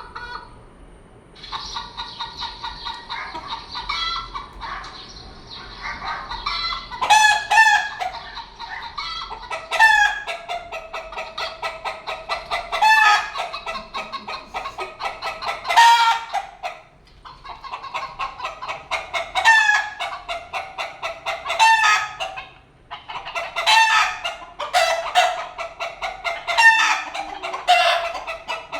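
A hen cackling: a steady run of rapid clucks, several a second, broken about every three seconds by a louder drawn-out call, with two short pauses along the way.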